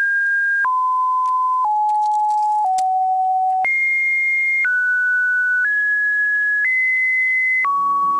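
A run of steady electronic beep tones with no gaps between them. The pitch jumps to a new note about once a second, low and high in turn, about nine tones in all.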